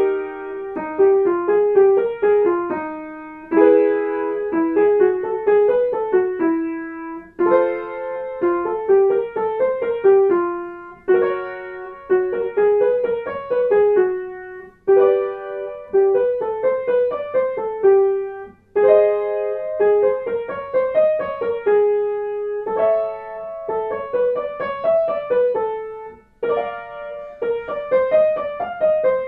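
Piano accompaniment for a vocal warm-up exercise with no voice: a short note pattern over a chord, repeated about every four seconds, each repeat pitched a little higher.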